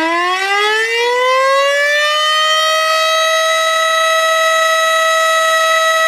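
Civil defense siren winding up: its pitch rises steadily, levels off a little after two seconds in, and then holds one loud, steady tone.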